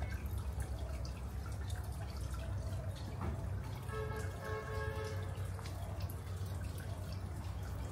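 Water dripping steadily, short irregular drops over a low steady hum. About four seconds in, a pitched call with several overtones sounds for about a second and a half, in two parts.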